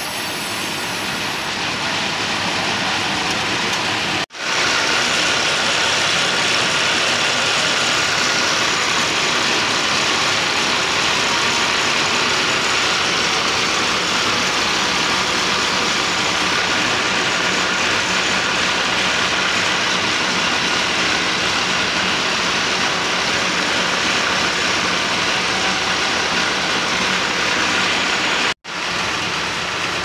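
Band sawmill machinery and its belt drive running steadily, an even mechanical din with two brief drop-outs, about four seconds in and near the end.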